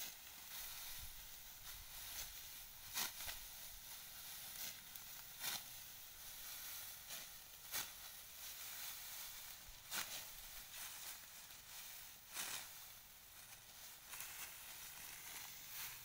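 Hand sickle cutting through dry rice stalks, a short crisp slicing stroke about every two to three seconds, with a steady rustle of dry straw as the stalks are gathered.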